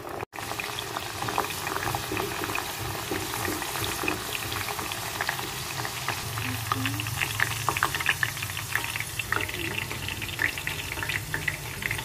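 French beans deep-frying in hot oil in a steel pot: a steady bubbling sizzle full of small crackles. This is the beans' pre-fry, before they are stir-fried.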